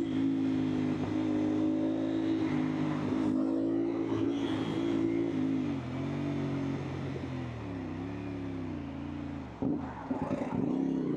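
CFMOTO 450SR's parallel-twin engine running at low, steady revs in slow traffic. The throttle eases off and back on in gentle swells from the middle onward, and there is a brief dip near the end.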